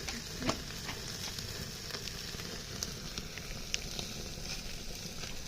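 Chicken on skewers sizzling over a charcoal barbecue fire, a steady hiss with scattered crackles and pops.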